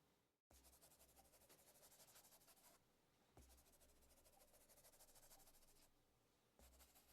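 Fast typing on a mechanical keyboard with stock Akko Bittersweet tactile switches, in a gasket-mounted Neo Ergo case with a PP plate and PBT keycaps. The sound is faint: three runs of rapid keystrokes with short pauses between them.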